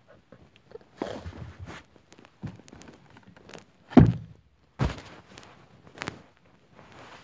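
Rustling and handling noise as a person shifts about in a car seat with the phone in hand, broken by a string of knocks, the two loudest about four and five seconds in.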